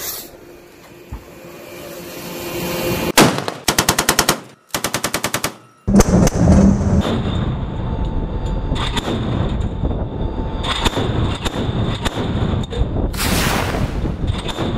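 Two short bursts of rapid automatic gunfire, about ten rounds a second, a few seconds in. About halfway through, a sudden loud blast is followed by continuous rushing noise with occasional sharp cracks.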